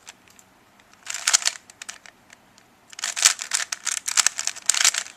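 Rubik's cube being turned quickly by hand: rapid clicking and clacking of the plastic layers, in a short run of turns about a second in and a longer run from about three seconds in.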